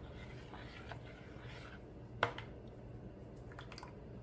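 Metal spoon stirring thin red chile sauce in a plastic bowl: faint liquid swishing with scattered light clicks and one sharper knock about two seconds in.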